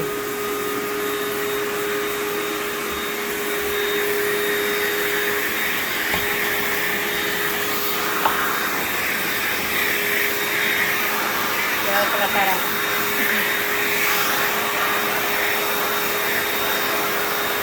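Backpack vacuum cleaner running steadily through an extension hose, sucking pet hair and dust off a ceiling fan: a constant motor whine over an airflow hiss that grows somewhat stronger partway through.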